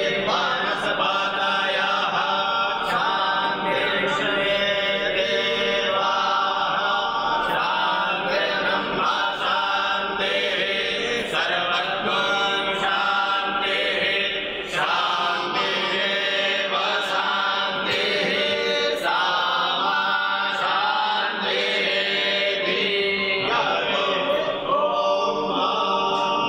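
A group of voices singing a devotional Hindu chant, continuous and melodic.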